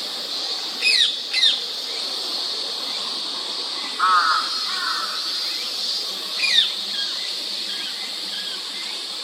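Rose-ringed parakeets giving shrill, sharply falling screeches: two close together about a second in and another a little past six seconds, with a lower, harsher call around four seconds in.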